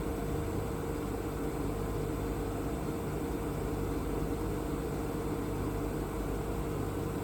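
Mecal MC 304 Pioneer CNC machining centre running under power: a steady mechanical hum with a constant mid-pitched tone over it, unchanging throughout.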